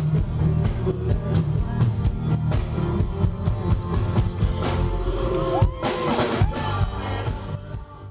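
A live band playing pop-rock through a concert PA, with a steady drum beat and a singer, fading out near the end.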